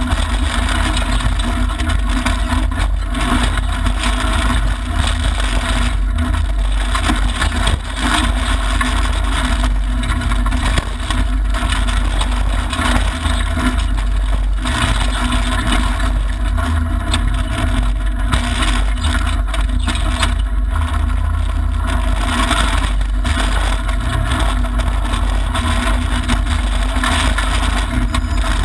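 Mitsubishi Lancer Evolution IX rally car heard from inside the cabin at speed on a gravel stage: its turbocharged four-cylinder engine running hard under load, mixed with loud, steady tyre and gravel noise.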